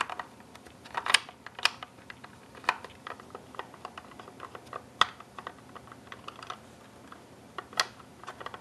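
Irregular light clicks and taps of an Allen wrench being turned in the screws that hold the barrel to the stock of an airsoft sniper rifle, metal tool knocking against the screws and gun body.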